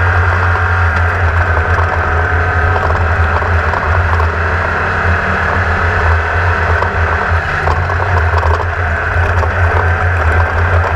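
Class 1600 off-road race buggy's air-cooled VW engine running at a steady pace under way, heard onboard with a constant din of chassis rattle and wind.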